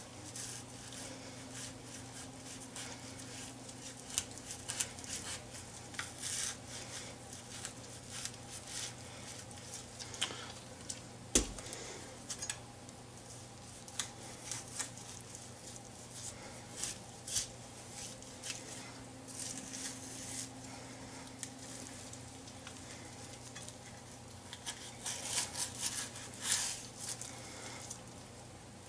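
Chef's knife cutting the rib bones off a raw prime rib roast: soft slicing and scraping along the bones, with scattered clicks and taps of the blade against a wooden cutting board. One sharp knock stands out about eleven seconds in.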